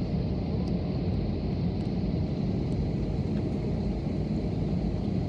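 Steady low rumble of an airliner heard from inside the passenger cabin as it taxis: engine noise and cabin hum, even in level throughout.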